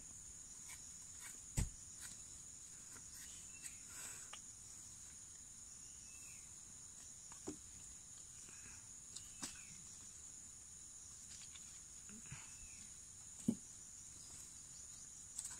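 Steady high-pitched chorus of insects such as crickets or cicadas, with a few faint short chirps. Several soft knocks and taps sound through it, the clearest about a second and a half in, as hands work at the tied kithul palm flower stalk.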